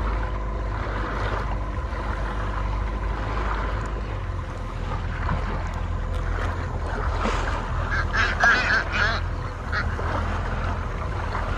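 Seabirds feeding on a shoal of small fish give a cluster of loud calls between about seven and nine seconds in, over a steady low rumble of wind and water.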